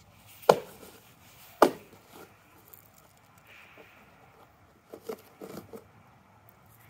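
Southern ground hornbills striking a cardboard box with their bills: two loud knocks about a second apart, then a cluster of lighter taps about five seconds in.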